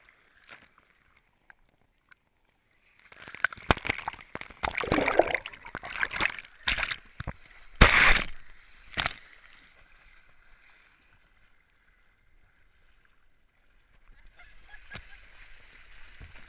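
Water splashing and sloshing right at the microphone of a camera dipping in and out of shallow water, in irregular bursts with sharp clicks, the loudest splash about eight seconds in. Quieter at the start and toward the end.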